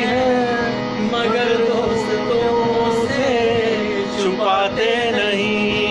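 A man singing a drawn-out, wavering melody without clear words, over steady backing music.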